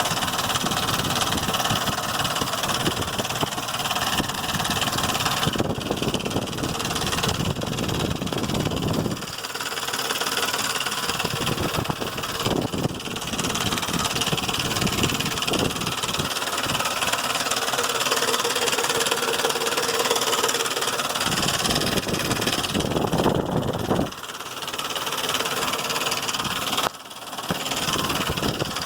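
2005 Ford Explorer's 4.0-litre V6 engine running with an abnormal mechanical noise, which the owner suspects comes from the lifters or the timing chain.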